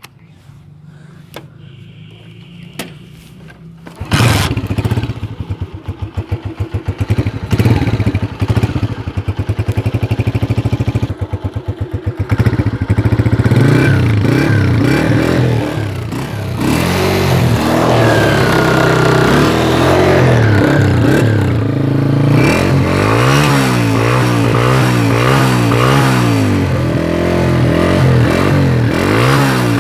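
Honda CG 125's single-cylinder four-stroke engine: a few clicks, then it starts about four seconds in and runs unevenly at first before settling. In the second half it is revved up and down over and over.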